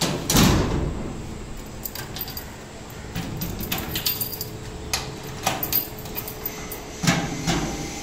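Metallic clicks and knocks of a rim lock on a sheet-metal gate being worked by hand, its bolt and knob moved. A louder knock against the metal gate panel comes about half a second in.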